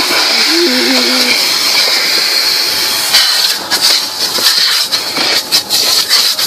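Car wash equipment heard from inside the car: a loud, steady rushing hiss that turns uneven and gusty about three and a half seconds in.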